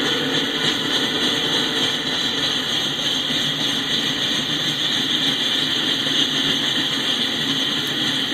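Coal train rolling past, a steady rushing rumble with no separate wheel clicks.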